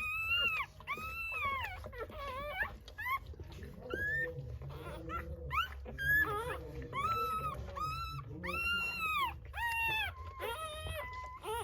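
Newborn Rottweiler puppies crying: a run of high-pitched squealing cries, about one a second, each rising and then falling in pitch.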